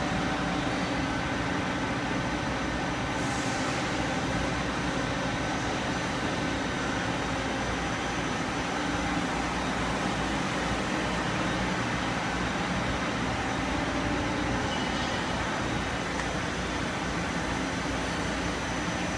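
Steady machine-shop drone: an even mechanical noise with a constant low hum and a few steady tones, unchanging throughout.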